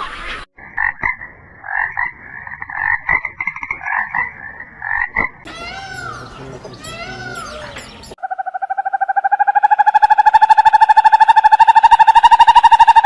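Frogs calling: a run of short chirping calls, then a long, rapid pulsed trill that starts about eight seconds in and is the loudest part.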